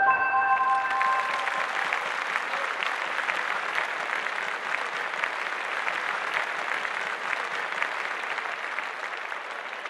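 Audience applauding, a dense patter of clapping that fades gradually toward the end. A few held notes ring out and die away in the first second or so.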